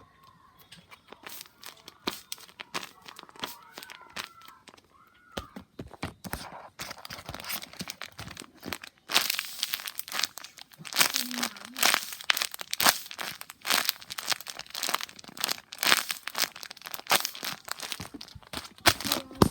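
A paper squishy toy being squeezed and handled, its paper crinkling and crackling in irregular bursts. It is faint for the first few seconds, then grows louder and denser from about nine seconds in.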